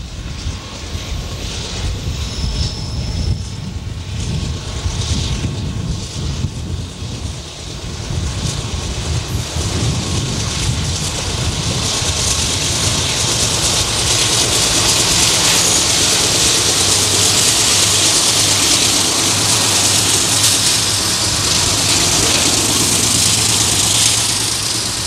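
Several GE AC4400CW diesel-electric locomotives working under load as they haul a loaded coal train past. Their engines and turbochargers build to a loud, steady rumble and hiss, which eases a little near the end as the locomotives go by and the coal hoppers follow. Wind buffets the microphone in the first few seconds.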